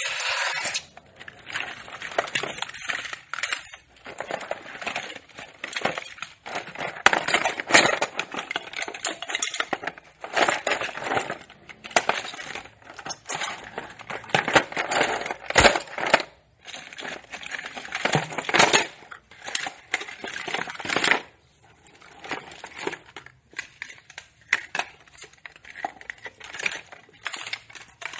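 Small hard objects being picked up, handled and put down, giving irregular clattering, clinking and knocking in clusters with short pauses between them.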